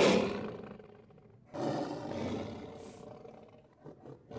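Lion roaring: two long, rough roars, each fading out, with a third just beginning at the end.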